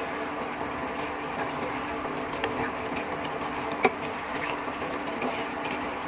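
A thick, reduced tomato-sauce stew of pork, potatoes and carrots simmering in a nonstick wok with a steady sizzle, while a wooden spatula stirs it and clicks against the pan a few times, the sharpest about four seconds in. A steady low hum runs underneath.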